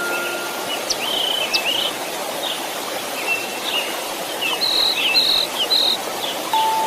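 Steady white-noise hiss with small birds chirping over it in short bursts. A soft chime note holds at the start and another sounds near the end.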